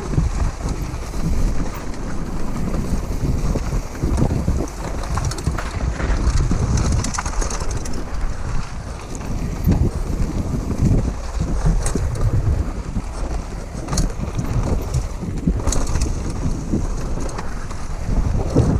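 Wind buffeting an action camera's microphone on a downhill mountain bike riding a dirt trail at speed, a steady low rumble with tyres on loose dirt and scattered clicks and knocks from the bike rattling over bumps.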